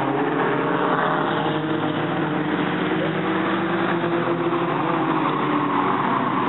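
Several dirt-track race cars' engines running at speed around the oval, a steady layered drone of engines at several pitches.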